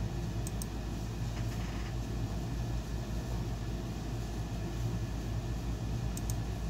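Steady low background hum with a noise haze, like a fan or machine running in a room, with two faint short ticks, about half a second in and near the end.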